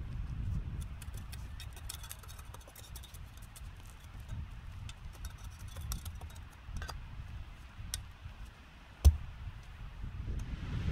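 Long-handled bar packing dirt around the base of a freshly set wooden post: soft knocks with many small clicks of soil and grit, and one sharp, hard thud about nine seconds in.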